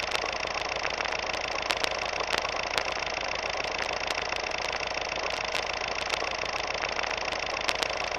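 Old film projector sound effect: a steady whir with scattered clicks and crackle.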